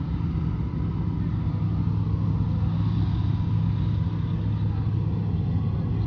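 Steady low engine rumble that holds an even level throughout, with no sharp events.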